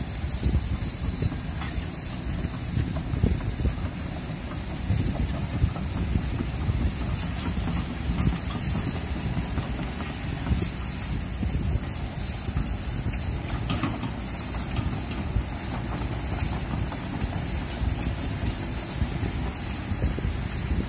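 Kobelco SK200 hydraulic excavator's diesel engine running under load as it swings and moves earth, with a few sharp clanks. Strong wind buffets the microphone, giving a ragged rumble.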